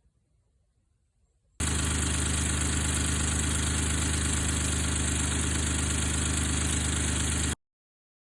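Suzuki Jimny JB23W's 660 cc three-cylinder turbo engine idling steadily. The sound cuts in abruptly about a second and a half in and cuts off just as abruptly about six seconds later.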